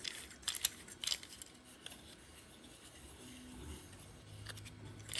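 3D-printed plastic parts clicking and rubbing against each other as they are handled and fitted together, with a few sharp clicks in the first second or so, then faint handling.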